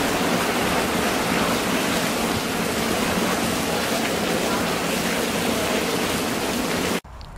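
Heavy rain falling steadily, a dense even hiss, which cuts off suddenly near the end.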